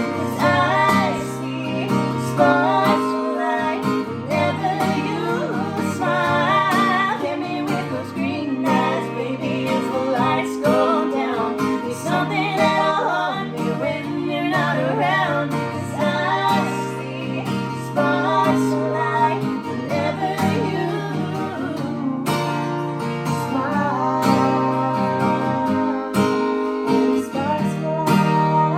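Strummed acoustic guitar with a woman singing over it.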